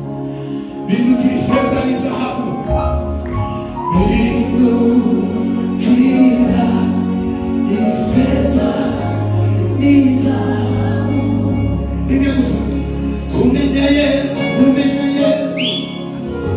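Live gospel worship music: a choir and lead singer singing with a band, held bass notes under the voices and drum hits every second or two.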